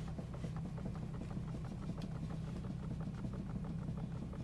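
2018 Subaru Outback's steering making a rapid run of short clicks, about five a second, as the wheel is turned with the car standing still, over the steady hum of the engine idling. The noise persists after the steering rack has been replaced twice, so the rack is not its cause.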